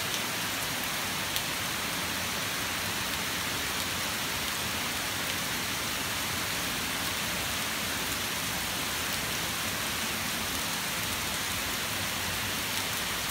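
Heavy downpour falling steadily, a dense even hiss of rain hitting the ground, with one sharper drop tick about a second in.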